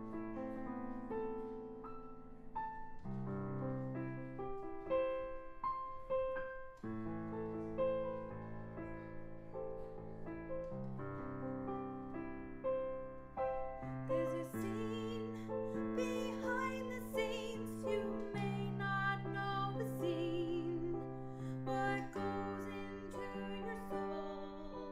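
Slow piano or keyboard music: sustained chords changing every few seconds under a melody. About halfway through it grows brighter and fuller, with crisp clicks over it.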